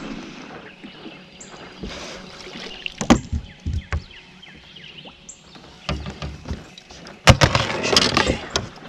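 A landing net and a freshly caught crappie being handled on a boat deck: scattered knocks of the net frame and rustling mesh, then a louder stretch of clatter and rustling near the end as the fish is taken out of the net.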